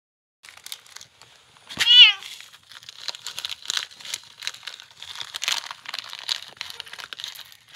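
A domestic cat meows once, loudly, about two seconds in. A plastic cat-food sachet then crinkles and rustles as it is handled.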